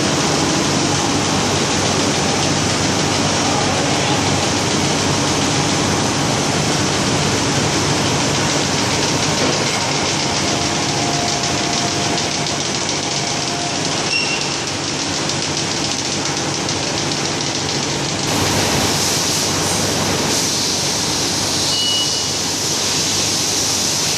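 Steady mechanical din of machines running on a plastic film and packaging factory floor: film extrusion, winding and pouch-making machines. The noise grows hissier about three-quarters of the way through.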